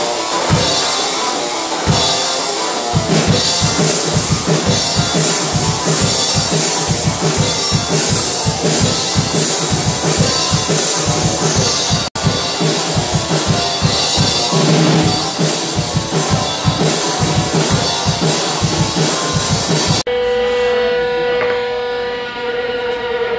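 Live rock band playing: electric guitar and a drum kit, the drums keeping a fast, steady beat. Near the end the music cuts off abruptly and a steady pitched tone takes over.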